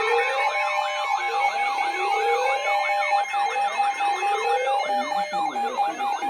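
Several electronic sirens sounding together: rapid yelping sweeps over a slower wail that rises again every couple of seconds, with a steady tone held underneath. About five seconds in, the slow wail gives way to a faster, lower warble.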